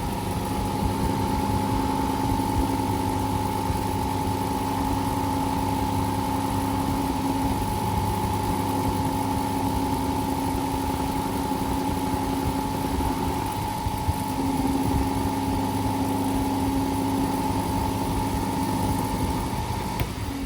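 Vintage 1950s Zero table fan running at its single speed: a steady motor hum with a high whine, the fan vibrating strongly. Near the end the whine starts to fall in pitch as the fan begins to spin down.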